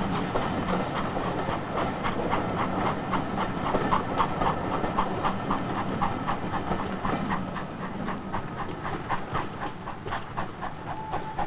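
Passenger train running on the rails, its wheels clicking over the rail joints in a quick, even rhythm over a steady rumble. Near the end a steady high note starts, like the train's whistle or horn.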